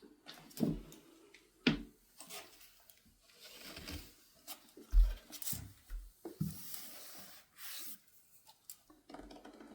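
A pet coughing: a run of short, sudden coughs and raspy breaths, with a low thump about five seconds in.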